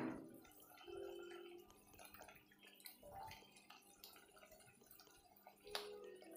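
Near silence: faint wet drips and small clicks of green chili sauce squeezed from a plastic squeeze bottle onto chicken in a wok, over a faint steady low hum.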